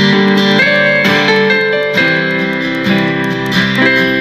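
Guitar-led music from an FM radio station playing through the Havit M29 Bluetooth clock-radio speaker, with held notes and a chord change about every second.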